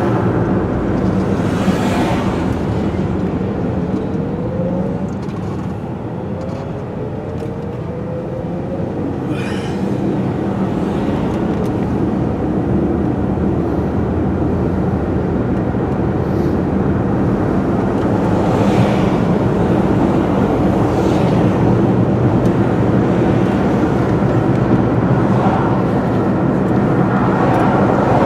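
Steady engine and road noise of a moving car, heard from inside the cabin. It eases off a few seconds in, then builds back up.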